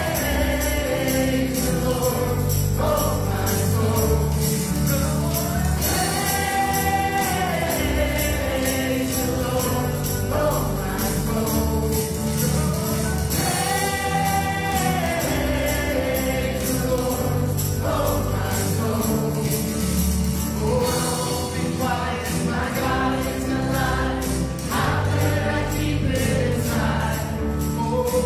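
Live contemporary worship band playing a praise song: several women singing the melody into microphones over electric guitar, drum kit and hand drums. The sung phrases rise and fall in long arching lines, repeating about every eight seconds.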